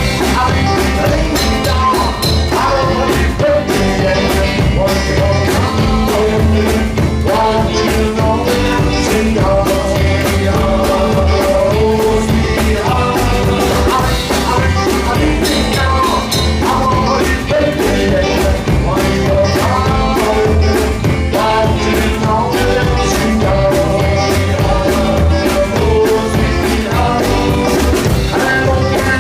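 Rockabilly band playing a rock-and-roll number with a steady driving beat and singing.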